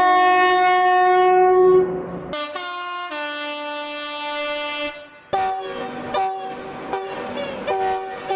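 British train horns: one long two-tone blast for about two seconds, then a different horn for about three seconds that cuts off suddenly, followed by a run of short toots.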